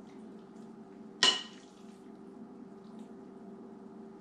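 A serving utensil clinks once against a dish about a second in, a sharp knock with a brief ring, while salad is dished up. A steady low hum runs underneath.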